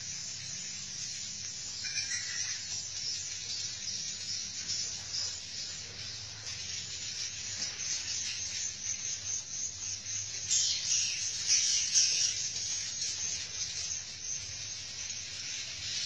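Chorus of edible-nest swiftlets twittering: a dense, steady stream of high, rapid chirps that swells louder for a couple of seconds past the middle.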